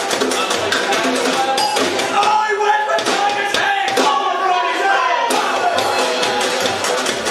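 Skiffle band playing acoustically: a double bass, a snare drum and a fiddle. The brisk percussion beat drops out for a few seconds in the middle, leaving bass and melody, then comes back in.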